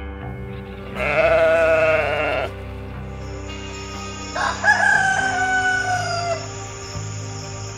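A sheep bleats once with a wavering call about a second in. A rooster then crows once near the middle, ending in a long, slowly falling note, over background music.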